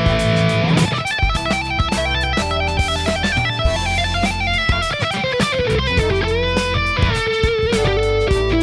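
Electric guitar played through a Hotone Ampero II multi-effects processor: a lead line of quick note runs and string bends over a backing track with drums and bass.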